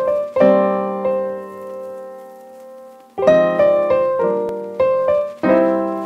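Opening theme music played on a keyboard: a chord struck and left to ring, fading for about three seconds, then a run of chords struck one after another about every half second.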